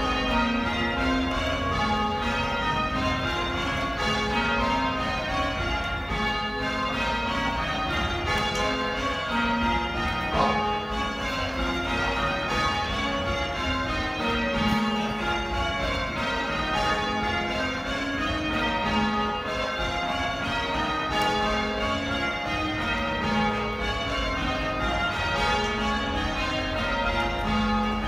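Church bells change ringing during a quarter peal: a continuous, even stream of overlapping bell strokes, each bell sounding in turn, heard from the ringing chamber where the ropes are pulled.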